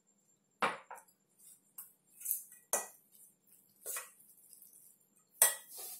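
A steel spoon clinking and scraping against a stainless steel bowl while stirring gram flour and water into a thick batter. There are four sharp clinks with softer scraping between them, and the loudest comes near the end.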